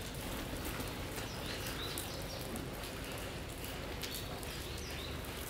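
Two cats eating wet food from a plastic tub, chewing and smacking in many small clicks, over a steady background hiss.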